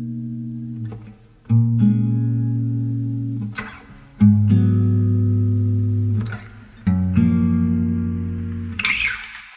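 Background music: slow sustained chords, a new one struck about every two and a half seconds, each fading out before the next.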